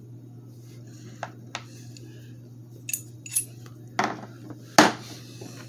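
Small steel nuts and bolts clinking against each other and the moulded plastic case as they are set into its slots: about six sharp separate clicks, the loudest about five seconds in, over a steady low hum.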